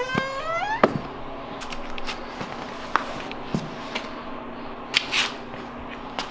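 A door creaking open, its hinge squeal rising in pitch, then a sharp knock about a second in as it swings to. After that, scattered light knocks and scuffs of footsteps on a concrete floor.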